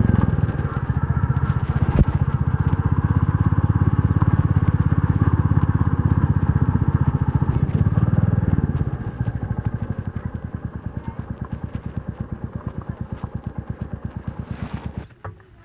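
Motorcycle engine running with a steady pulsing beat. About nine seconds in it drops to a quieter, slower idle, and it cuts off near the end.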